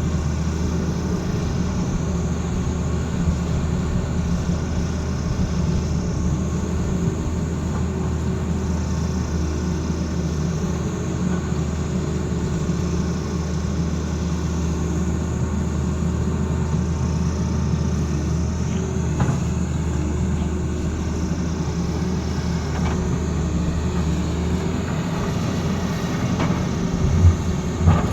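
Excavator diesel engine running steadily under load, with a deep hum. The deep note eases near the end, and two loud knocks follow.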